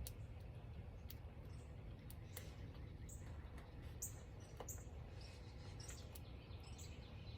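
Faint bird chirps: a handful of short, high calls around the middle, over a steady low rumble, with a few light clicks.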